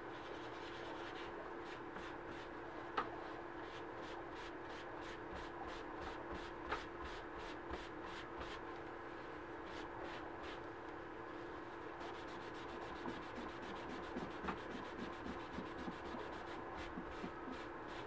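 A cloth rag being rubbed back and forth over a dyed leather key chain on paper towels, in quick repeated strokes, working leather dye into the leather. A few sharper clicks come in between, over a steady background hum.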